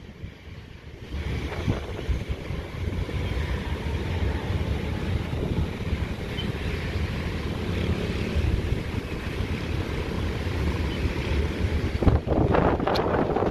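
Twin-engine wide-body jet airliner on approach, its engines a low, steady rumble mixed with wind noise on the microphone. The noise gets louder and rougher about twelve seconds in.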